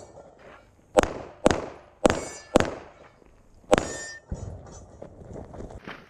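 Pistol fired at steel targets: four quick shots about half a second apart, then a fifth after a pause of about a second, the last followed by a brief metallic ring from the struck steel plate.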